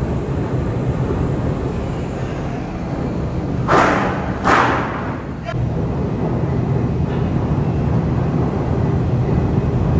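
Steady low hum of a ship's machinery, with two short hissing bursts close together about four seconds in.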